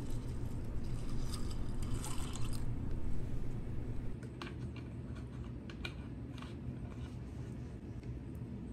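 Orange juice poured from a bottle onto dry honey almond cereal in a bowl, splashing for nearly the first three seconds and then stopping. Scattered small clicks follow as the cereal sits in the juice.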